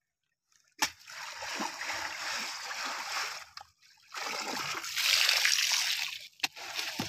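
A hand rummaging through a heap of wet small fish and shrimp in a mesh net: two spells of wet rustling and splattering, each a couple of seconds long, the second louder, with a sharp click just before the first and a few short clicks near the end.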